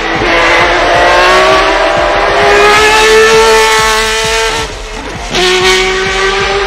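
Ferrari 333 SP's V12 racing engine heard onboard at high revs, its note rising under acceleration for about three and a half seconds. The sound drops briefly about five seconds in, then comes back at a lower pitch.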